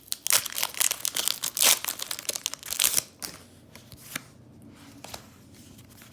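A Pokémon trading-card booster pack's foil wrapper crinkling and tearing open, a dense crackle for about three seconds, then quieter with a couple of single soft clicks.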